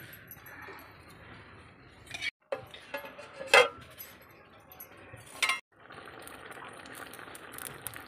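A metal plate lid and a ladle clink against a metal kadhai: a few sharp clanks, the loudest about three and a half seconds in, over a steady hiss from the cooking pan. The sound cuts out briefly twice.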